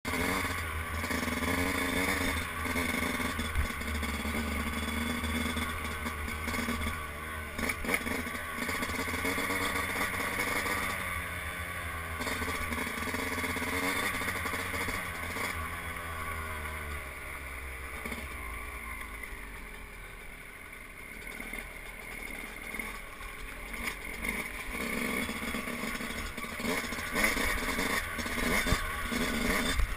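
Yamaha YZ125 two-stroke dirt bike engine running under way, its pitch easing down in the middle as the bike slows, then picking up again toward the end.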